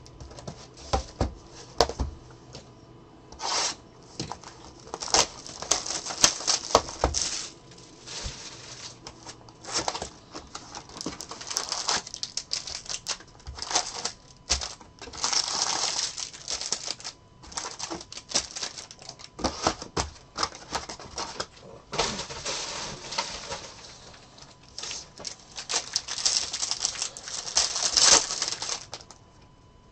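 A cardboard hobby box of 2023 Bowman Jumbo baseball cards being opened and its foil-wrapped packs handled and torn open: irregular crinkling and tearing with occasional taps and knocks. The loudest tearing comes near the end.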